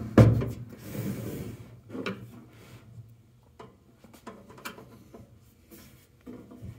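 A sharp knock just after the start, then scattered light clicks and rubbing as a screwdriver works the screws on the heater's sheet-metal bottom cover.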